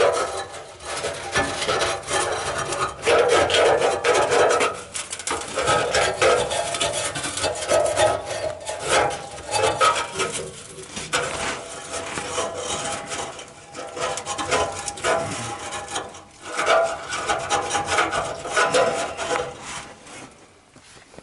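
A small cleaning brush scrubbing and scraping inside a Hallmark furnace, in irregular back-and-forth strokes as debris is loosened for vacuuming during service. The strokes die away near the end.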